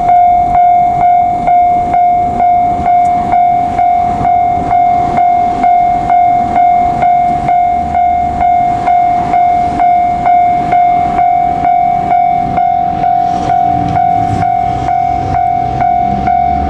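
Japanese level-crossing warning bell ringing steadily, about two strikes a second. The low rumble of an approaching train builds underneath in the second half.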